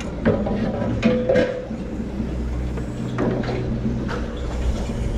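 Steady low drone of a sportfishing boat's engine running at idle.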